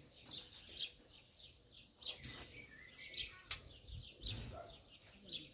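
Small birds chirping in a quick, steady series of short high notes, with a single sharp click a little past halfway and a few dull knocks soon after.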